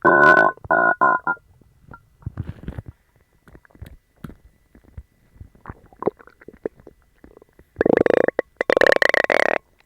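Human stomach growling from an upset stomach after eating dog treats. A loud, pitched gurgling growl comes at the start. Small pops and gurgles follow, then a second long, loud growl about eight seconds in.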